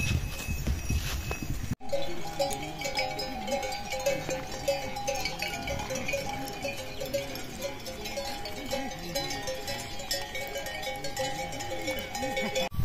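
Bells on a herd of water buffalo clanking steadily as the animals walk and graze, a few ringing notes struck over and over in a loose rhythm of about three a second.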